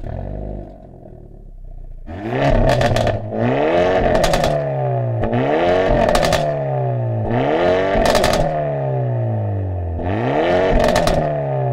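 Hyundai Elantra N's 2.0-litre four-cylinder turbo engine, breathing through a tuned aftermarket exhaust, fires up and settles to a lumpy idle. It is then revved hard five times, about every two seconds, each time snapping up to the rev limiter and dropping back down.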